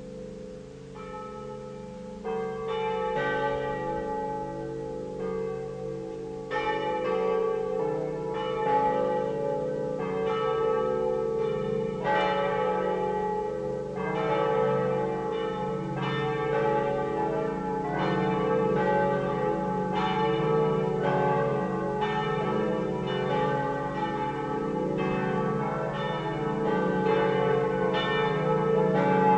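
Swinging church bells from a five-bell peal tuned D, E, F-sharp, G and A, cast by G. Pruneri of Grosio in 1901, ringing full swing. Strikes start about a second in and thicken as more bells join after about two and again about six seconds, then run on as a dense, overlapping clangour over a long sustained hum.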